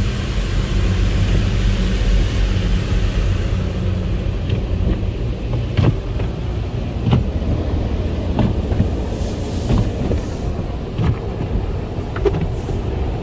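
Motor City Wash Works car wash tunnel heard from inside the car: a steady low rumble with a spray hiss for the first few seconds. After that, the red cloth mitter curtain strips drag over the windshield and roof, slapping the car about every second and a half.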